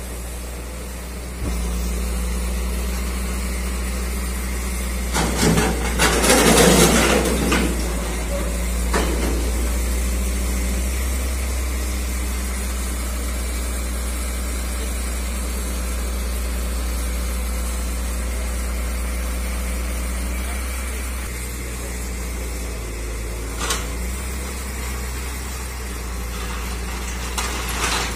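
Diesel engine of a crane truck running steadily, powering a hydraulic orange-peel grab handling scrap metal. About six seconds in there is a loud clattering crash of metal, and a few short clanks follow later.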